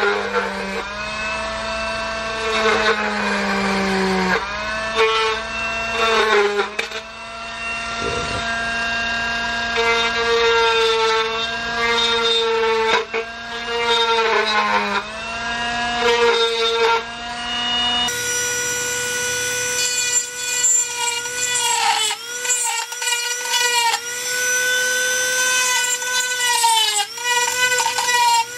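Handheld Dremel-style rotary tool running at high speed, its whine dipping in pitch again and again as the spinning bit is pressed into the plastic caps on the gauge housing's pins to drill them out.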